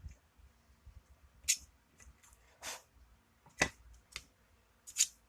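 Sharp clicks and knocks of a lock and lock tools being handled, about six at irregular intervals.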